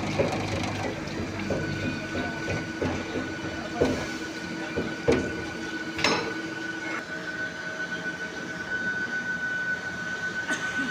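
Hydraulic broaching machine, 25-ton with an 1800 stroke, running: a steady hum, joined about a second and a half in by a high whine that holds on, with a few sharp metallic knocks around the middle.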